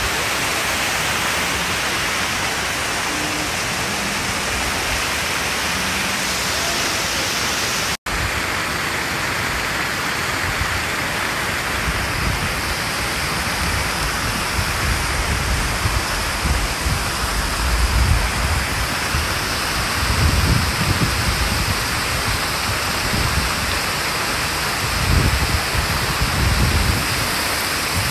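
Steady rush of a wide waterfall of many thin streams pouring over a rock face into a pool. From about twelve seconds in, gusts of wind buffet the microphone with low rumbling bursts. The sound cuts out for an instant about eight seconds in.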